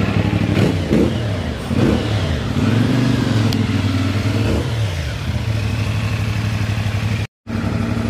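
CFMoto 450NK's parallel-twin engine revved several times, quick blips rising and falling, then held up for about two seconds before dropping back to a steady idle. These are the first revs of the brand-new engine, warmed to about 66 °C.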